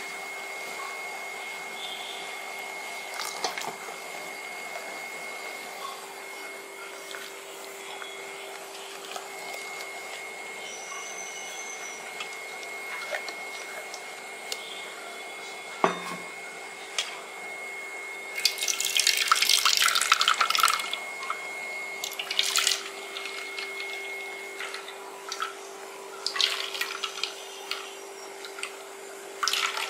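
Wet ground coconut paste being squeezed by hand in a metal strainer, coconut milk dripping and splashing into a steel bowl, in irregular bursts, the loudest about two-thirds of the way in. A faint steady hum runs underneath.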